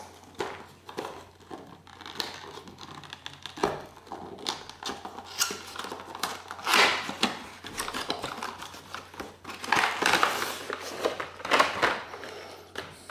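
Cardboard box and plastic blister packaging being opened and handled: irregular crinkling, rustling and light clicks. There are louder bursts of crinkling around the middle and about three quarters of the way through.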